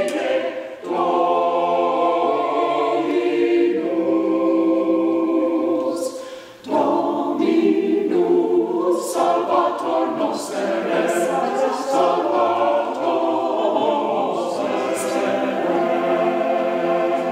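Mixed choir of men and women singing in a church, in phrases with short breaks about a second in and again about six and a half seconds in.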